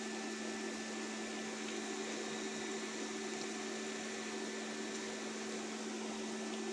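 Steady electrical hum with an even fan hiss from a running kitchen appliance, with no change in pitch or level.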